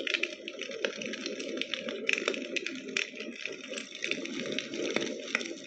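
Recorded campfire crackling played back through a small natural-sound speaker: a steady hiss with frequent sharp pops and crackles.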